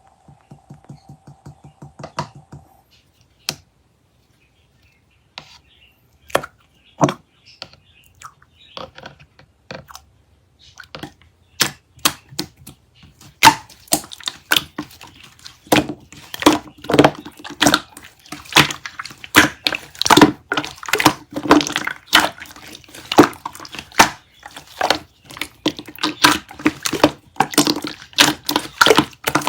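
Chocolate-milk slime being pressed and stretched by hand, giving sticky clicks and pops. They come in scattered ones and twos at first, then turn into dense, rapid crackling from about halfway through.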